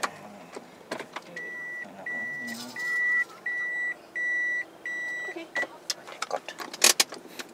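Car parking sensor beeping at a steady pace of about one and a half beeps a second, about seven beeps, warning of an obstacle close by. The beeps give way to a few sharp clicks and knocks near the end.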